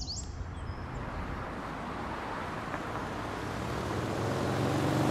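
A road vehicle approaching: a steady rushing traffic noise with a low rumble that grows gradually louder. A brief high chirp sounds right at the start.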